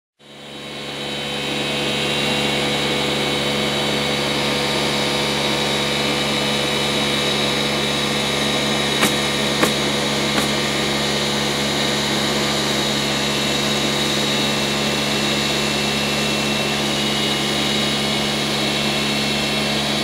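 A steady motor drone that fades in over the first couple of seconds and then holds at one pitch, with three sharp clicks a little before and after the middle.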